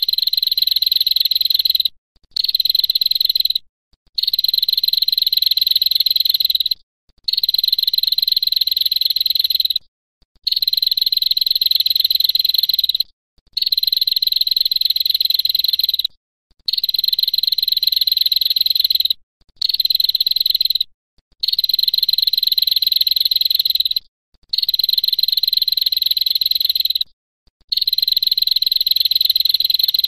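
Female prenjak giving its long, high-pitched buzzing trill ("ngetir"), in bursts of two to three seconds each, repeated about a dozen times with short breaks between them.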